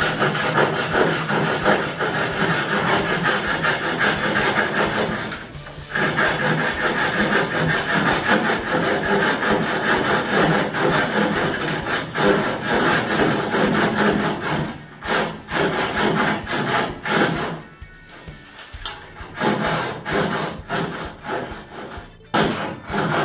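Hand saw cutting through a plaster ceiling edge in quick back-and-forth strokes. The sawing is continuous for about fourteen seconds, with a brief break near six seconds, then goes on in shorter runs of strokes with pauses between them.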